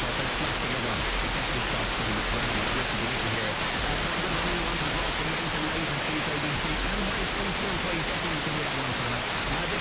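Steady FM interstation hiss from an RTL-SDR receiver demodulating a Pioneer FM tuner's 10.7 MHz IF. The tuner is on a channel with no station carrier, and faint low tones show under the hiss.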